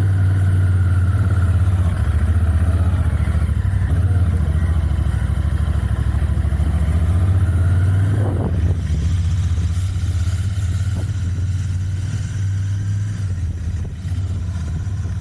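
Royal Enfield Continental GT 650's 648 cc parallel-twin engine with its stock exhaust, running steadily while the bike is ridden, easing off a little about eight seconds in.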